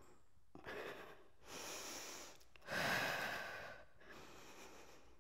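A woman breathing hard from exertion during a bodyweight bridge exercise: three deep breaths in a row, the third the loudest.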